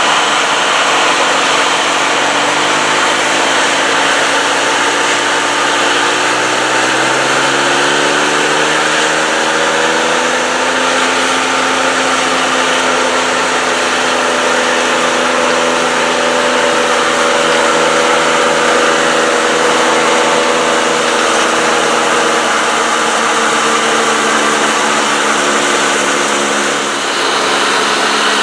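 Diesel engine of a John Deere combine harvester running under harvest load, with a steady whir of machinery over it. The engine note rises over a few seconds about a third of the way in, then holds steady and eases slightly near the end.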